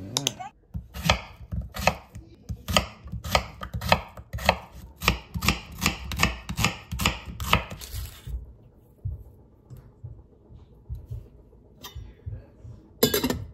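Kitchen knife chopping an onion on a wooden cutting board: even, sharp cuts about three a second for several seconds, then stopping. A brief loud knock near the end.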